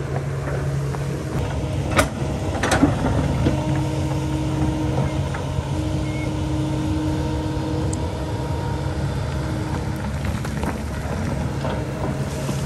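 Kobelco hydraulic excavator's diesel engine running steadily at working revs, with a higher steady tone joining in from about three and a half seconds. A couple of sharp knocks stand out around two and three seconds in.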